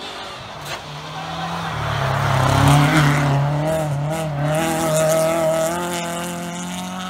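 Rally car on a special stage approaching at speed, passing close about two and a half seconds in, then driving away with its engine note climbing as it accelerates.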